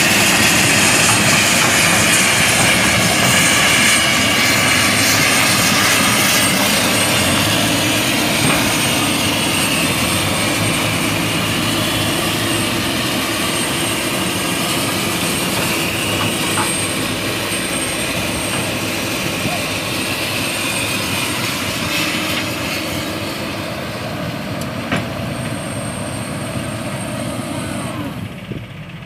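Komatsu crawler excavator's diesel engine and hydraulics working hard under load, pushing a truck through deep mud, with a steady high whine over the engine. The noise slowly gets quieter and drops off sharply shortly before the end.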